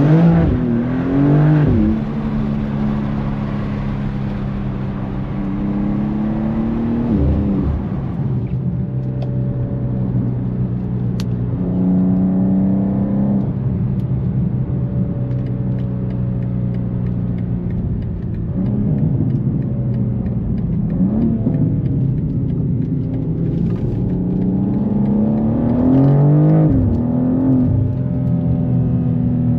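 BMW M2 G87's twin-turbo 3.0-litre inline-six breathing through an Akrapovic exhaust while driving. Revs climb in several short pulls, each cut off by a drop in pitch at the gear change, between long stretches of steady cruising.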